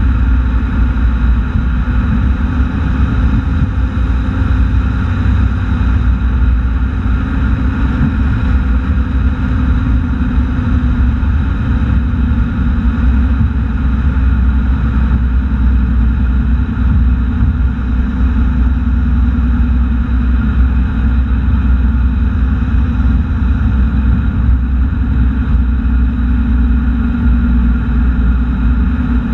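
Vehicle driving steadily along a highway, picked up by a camera mounted low on the outside: a loud, unbroken low rumble of road, wind and engine noise.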